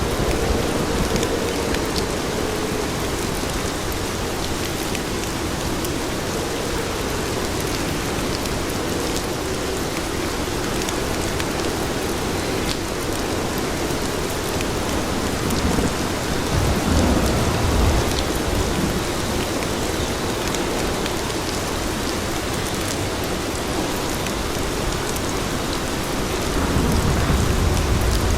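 Steady, dense rain falling on city pavement. A low rumble swells up twice, about two-thirds of the way in and near the end.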